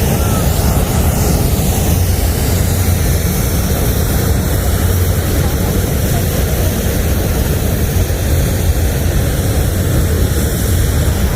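A low aircraft flying over, with a loud steady engine drone that holds for several seconds.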